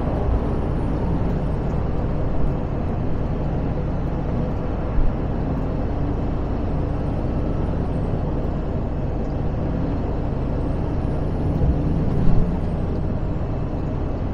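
Cab noise of a Mercedes Actros truck cruising on a motorway: steady engine and tyre-road rumble, with a couple of brief bumps about five and twelve seconds in.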